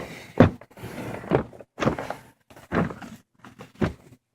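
A series of about five dull thumps and knocks, irregularly spaced, with rustling handling noise between them.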